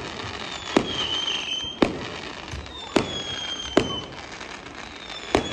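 Fireworks display: five sharp bangs of aerial shells bursting, roughly a second apart. A thin whistle that falls slightly in pitch trails after some of the bangs.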